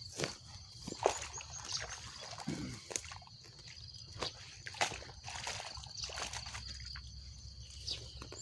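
Water sloshing and trickling as a mesh bag of caught fish is dipped into the canal and lifted out dripping, with scattered light clicks and rustles.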